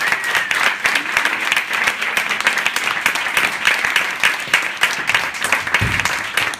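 Theatre audience applauding: dense, steady clapping from many people.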